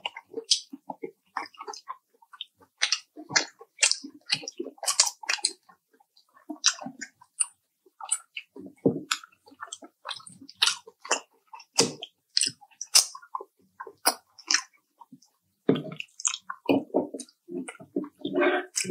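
Close-miked chewing and biting of crispy fried chicken: many short, irregular crunches and wet mouth smacks, with a few brief pauses.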